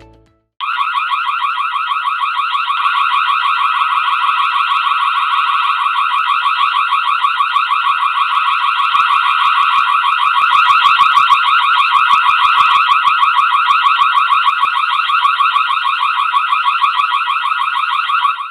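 Built-in alarm siren of a Partizan FADA SH-series IP camera sounding as an intruder deterrent: a loud electronic siren of rapid, repeating pitch sweeps. It starts about half a second in and cuts off abruptly at the end.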